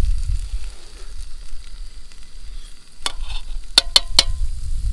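Metal utensil clinking and scraping against a metal camping cook pot, with a quick run of four sharp clinks in the second half, over a low rumble.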